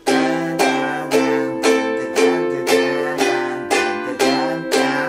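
Ukulele strummed in a steady rhythm, about two strums a second, playing the intro chord progression C, Am, F, G7.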